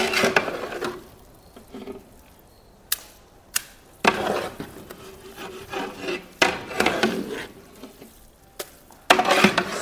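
A large metal ladle stirring and scooping thick vermicelli kesari in a big metal pot, with wet scraping stretches and a few sharp knocks of the ladle against the pot.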